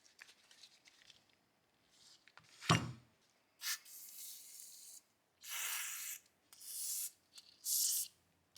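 A single sharp knock, then four short bursts of hissing spray, each lasting roughly half a second to a second.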